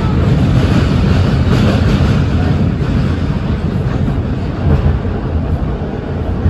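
Steady running noise inside a moving R160B subway car with Siemens propulsion, mostly a low rumble from the wheels on the rails and the car body.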